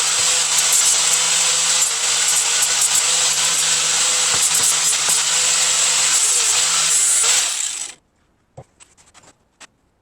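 Electric arc welding on the steel base plate: a steady crackling hiss that stops abruptly near the end as the arc is broken, followed by a few light clicks.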